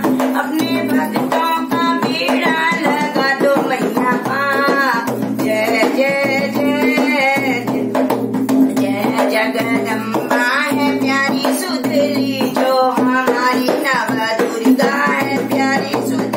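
A woman singing a Hindi devotional bhajan, accompanying herself on a dholak, a two-headed barrel drum struck with the hands, in a steady rhythm.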